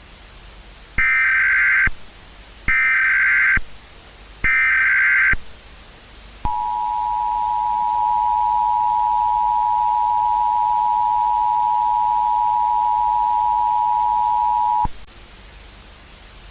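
Emergency Alert System header: three short bursts of SAME data tones, each just under a second, starting about a second in, followed by the EAS two-tone attention signal (853 and 960 Hz together), a steady dual-pitched tone held for about eight seconds before cutting off sharply.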